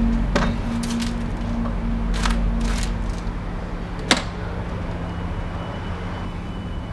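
A leather briefcase set down on paving slabs with a few short knocks and scrapes, then a single sharp click about four seconds in as a briefcase latch snaps open. A steady low hum runs underneath.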